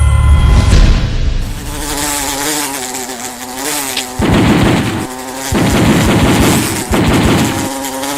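A steady buzzing tone that wavers slightly in pitch, joined about four seconds in by two loud stretches of low rumbling.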